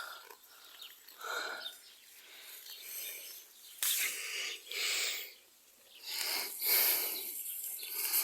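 Goat feeding at a leafy branch: leaves rustling and munching noises, coming in several uneven bursts with a short pause about halfway through.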